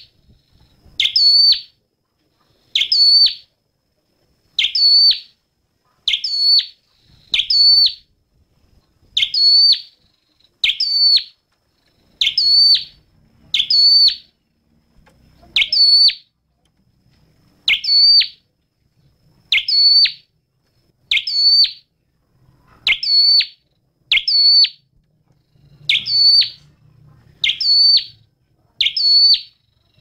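Common tailorbird singing: a loud, sharp, high note repeated over and over, roughly once a second, sometimes in quick pairs.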